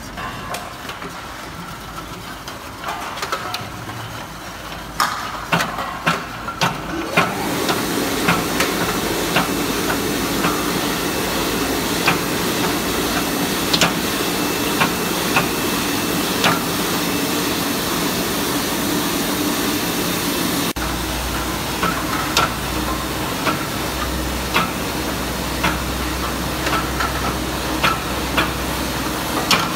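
Automatic water-bath leak tester for aerosol cans running, with a steady hiss and hum. Irregular sharp clinks come as the tin cans knock against the screw feeder and star wheel. A deeper hum joins about two-thirds of the way through.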